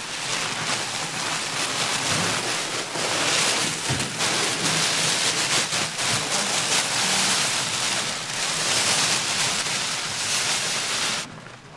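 Coarse red chili powder (gochugaru) pouring out of a plastic bag in a steady hissing stream, like rain, with the bag rustling; the pour stops near the end.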